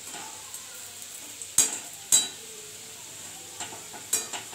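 Potato chunks frying in oil in a kadai with a steady low sizzle, while a spatula turns them, knocking and scraping against the pan a few times, loudest twice mid-way and again near the end.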